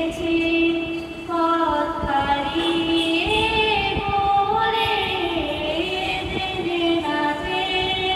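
A young woman's solo voice singing an Islamic song, unaccompanied, in long held notes that slide from pitch to pitch.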